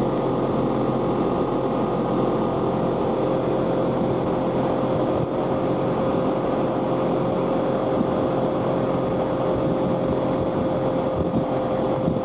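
Outboard motor running steadily at high speed, pushing the boat at towing pace, with an even drone over the rush of water and wind.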